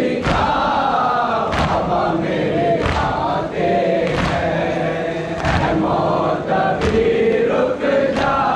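Crowd of Shia mourners chanting a noha together, kept in time by a steady beat of hands striking chests (matam), one stroke a little more than a second apart.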